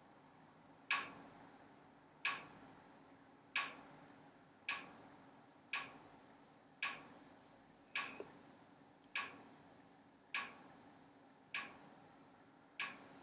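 A regular ticking: one sharp tick roughly every 1.2 seconds, starting about a second in.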